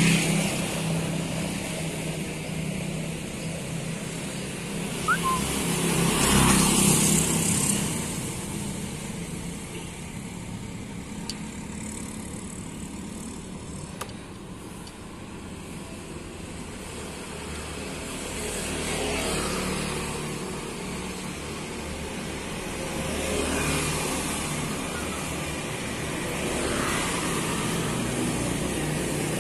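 Street traffic: road vehicles passing one after another, each swelling and fading over a steady background of engine hum and road noise.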